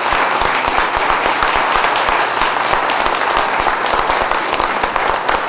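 A congregation applauding: many hands clapping in a steady, loud round of applause.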